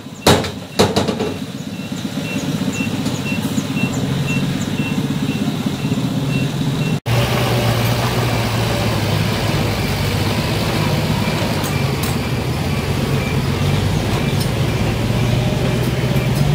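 Diesel dump truck engines running. Two sharp knocks come in the first second. After a break about 7 s in, a second loaded dump truck's engine runs louder, with a faint high beep repeating about twice a second.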